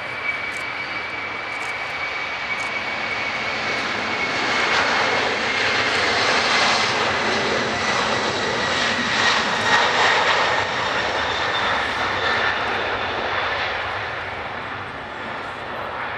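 Boeing 747-400's four Rolls-Royce RB211 turbofans at takeoff thrust as the jet accelerates past on its takeoff roll: the engine noise grows to its loudest about halfway through, then fades as it rotates, with a steady high whine that slowly drops in pitch as it passes.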